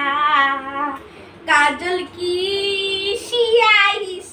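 Singing: a high voice holding wavering, sliding notes in a few short phrases, with a brief break about a second in.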